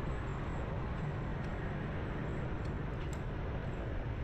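Steady street traffic noise: motorbike and car engines and tyres, heard from a vehicle moving in the flow of traffic, with a heavy low rumble.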